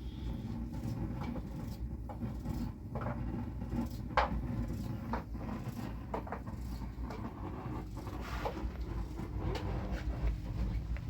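Scattered light knocks and clicks, the loudest about four seconds in, over a steady low rumble.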